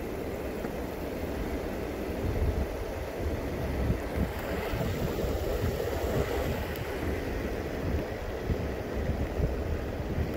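Wind buffeting the microphone while moving along at speed: a steady, fluttering low rush with no distinct tones.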